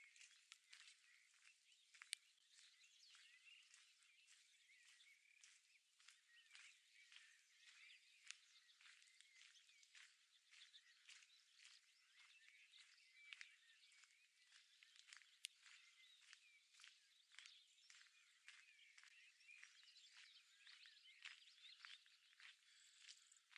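Faint chorus of songbirds, many overlapping chirps and trills, with a few sharp clicks.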